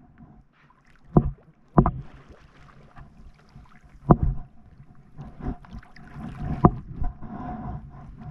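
Stand-up paddleboard being paddled: sharp knocks from the paddle and board, with water splashing that grows louder toward the end.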